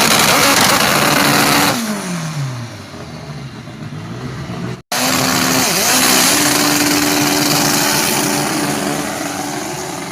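Turbocharged drag car doing a burnout: the engine is held at high revs under a loud hiss of spinning tyres, and the revs fall about two seconds in. After an abrupt cut about five seconds in, another burnout runs at steady high revs and fades near the end.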